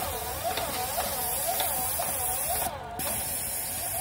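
Paint sprayer running: a steady spray hiss over a machine tone that dips and rises about twice a second. The hiss cuts out briefly about three seconds in, then starts again.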